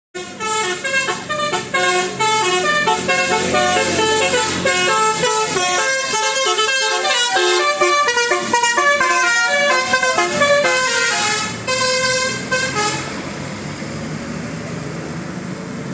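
Bus telolet horn, a multi-trumpet air horn, playing a quick tune of short stepped notes, several sounding at once. About thirteen seconds in it stops, leaving a steady low rumble.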